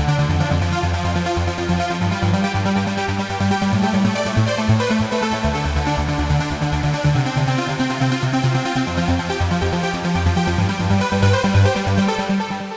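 Roland SH-201 synthesizer playing a trance patch: a fast, steady pulsing sequence over a moving bass line, fading out near the end.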